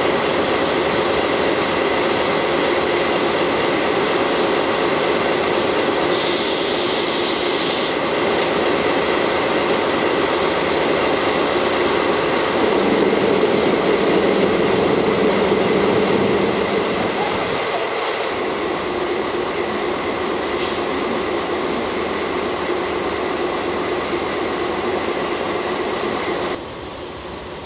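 JNR Class DD51 diesel-hydraulic locomotive, with twin V12 diesel engines, idling steadily close by during coupling. About six seconds in, a high hiss with a rising whistle lasts about two seconds, and the engine sound grows somewhat louder for a few seconds in the middle.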